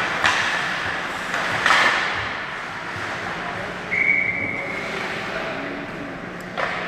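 Ice hockey game sound in a rink: steady noise with sharp stick-and-puck knocks near the start and about a second and a half in. About four seconds in, a referee's whistle blows one steady note for about a second.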